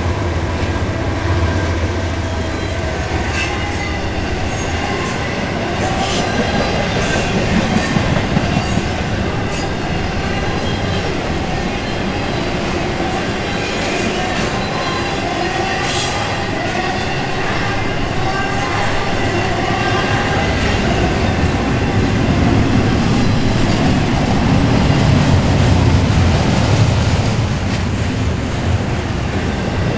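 A freight train passing close by. In the first few seconds a diesel locomotive's engine hums low, then double-stack container cars roll past with steady wheel-on-rail noise, clacking over the rail joints and an occasional high wheel squeal.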